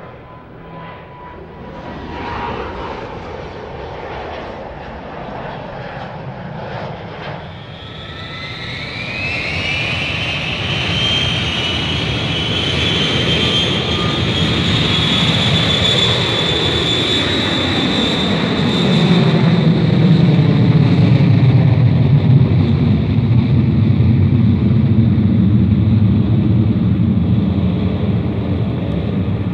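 Jet airliner taking off. About eight seconds in, the engines spool up with a rising whine that settles into a steady high whine, over a deep rumble that grows louder as the takeoff run builds.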